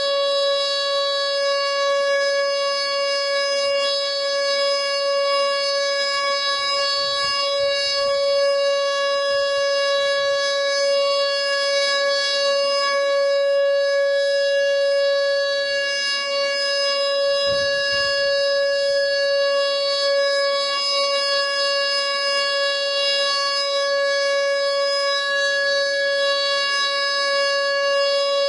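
Whelen WPS 2910 electronic outdoor warning siren sounding its steady alert tone, one unchanging pitch with strong overtones.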